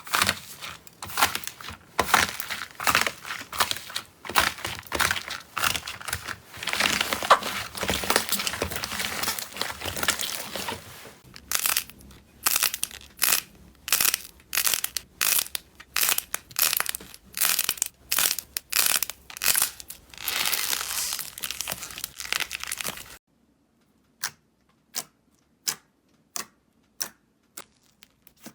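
Slime being squeezed and worked by hand, giving a dense run of crackling for the first several seconds. Then come sharp snaps at about two a second, and near the end fewer, fainter clicks against a silent background.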